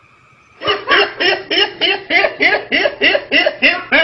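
A person laughing in a fast, even run of short 'ha' bursts, about four to five a second, breaking out about half a second in.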